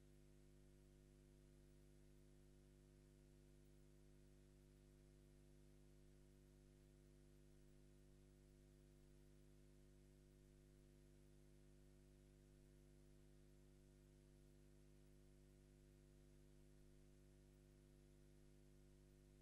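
Near silence: only a faint, steady low hum.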